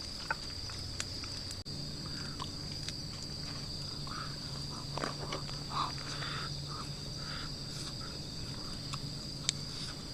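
Night insects, crickets, trilling in a steady high-pitched drone, with scattered light clicks over it.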